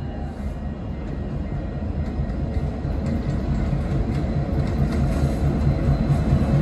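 Diesel-electric freight locomotives, a Norfolk Southern leader trailed by Wells Fargo SD70MACs, approaching: a low engine rumble growing steadily louder as the units draw near.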